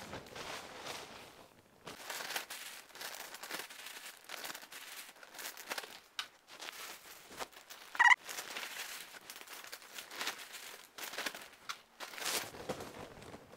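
Plastic bags of crackers crinkling and rustling as they are handled and packed, in irregular crackly spells. About eight seconds in there is one short, loud high-pitched tone.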